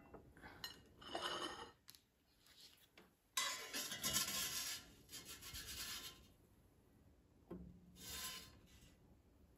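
A spatula scraping and rubbing against the inside of an air fryer basket as silicone egg cups are scooped out: a short scrape about a second in, a longer scraping spell of a couple of seconds from about three and a half seconds, and another scrape near the end.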